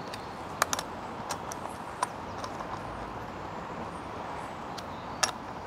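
A few scattered sharp metal clicks and taps as a chainsaw socket wrench is fitted to and turned on the bar-cover nuts, tightening them down once the chain tension is set. A steady background hiss runs underneath.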